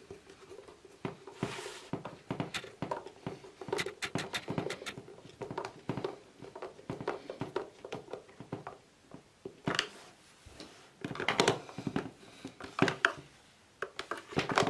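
A hand screwdriver driving screws into the plastic base of a portable fan heater, with irregular clicks and scrapes of the tool and the plastic housing being handled.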